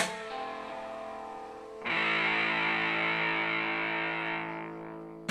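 Distorted electric guitar: a few held single notes, then about two seconds in a loud strummed chord left to ring and slowly fade. A sharp knock sounds at the start and another near the end.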